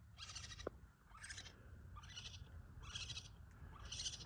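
Raccoon kits crying: five faint, short, high-pitched calls, about one a second.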